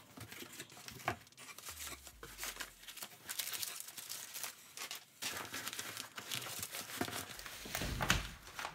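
Kraft packing paper rustling and crumpling in irregular flurries as wrapped parcels are handled and lifted out of a cardboard shipping box, loudest near the end.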